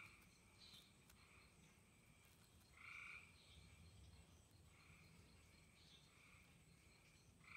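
Near silence with faint animal calls repeating every few seconds, short two-pitched notes that are a little stronger at the start, about three seconds in and near the end.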